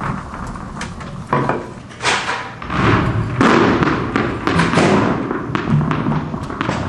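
Many tennis balls bouncing on a hard floor: an irregular scatter of thuds and taps, some overlapping, some landing alone.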